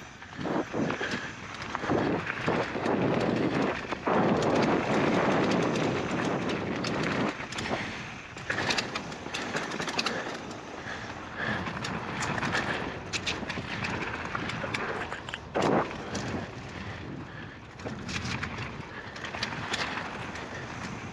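Polygon Siskiu N9 mountain bike rolling fast down a dirt trail: tyre noise over dirt with constant rattles and clicks from the bike over bumps, louder for a few seconds near the start, with a sharp knock about halfway and another a little past three-quarters through.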